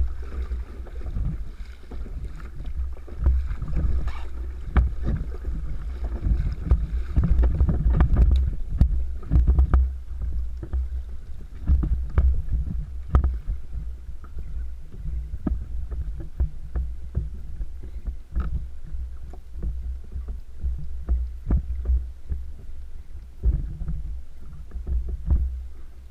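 Kayak on the sea: a heavy, fluctuating low rumble of wind and water on the microphone, with frequent sharp knocks and clicks from the hull and fishing gear. The rumble is loudest for a few seconds early in the stretch.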